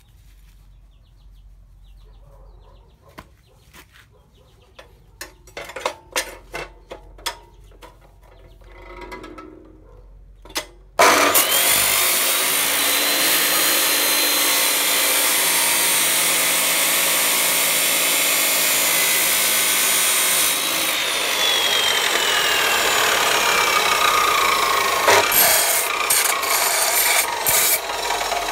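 Metal clicks and knocks as a rusty steel sword blade is clamped in the vise of an abrasive cut-off saw. About eleven seconds in, the saw starts with a rising whine and its disc cuts loudly through the steel. In the second half the whine slowly falls, with a few knocks near the end.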